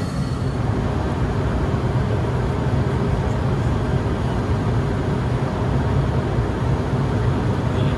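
Cabin noise of a small private jet in flight: an even, steady rush with a low hum beneath it.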